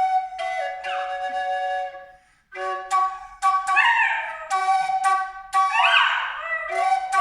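A wind instrument plays held notes while a dog howls along with it, about three howls that rise and fall in pitch.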